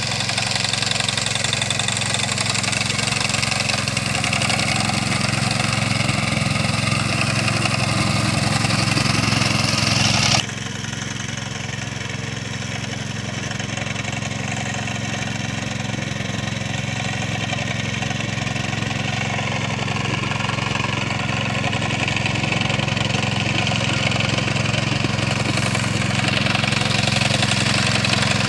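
Engine of a Ruris walk-behind motor mower running steadily under load as it cuts through tall meadow grass. The level drops abruptly and the sound changes about ten seconds in.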